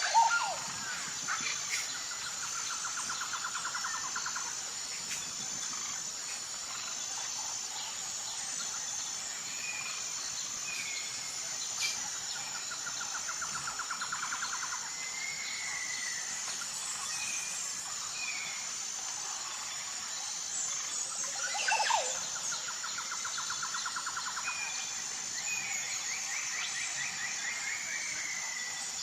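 A steady, high insect drone with birds calling over it: three buzzy trills a few seconds long, short whistled slides, and a loud sweeping call at the start and again about 22 seconds in.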